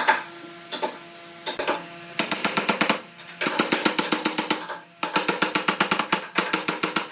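Music with fast, even percussive strokes in bursts of a second or two, over steady held notes.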